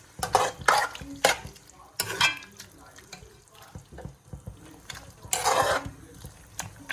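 A spoon stirring and scraping against a pan of sauce with chicken stock just added, in irregular strokes, the loudest near the start, about two seconds in and about five and a half seconds in.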